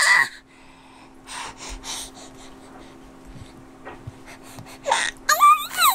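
Baby's excited short breaths and huffs, then a loud high-pitched squeal near the end, over a faint steady hum.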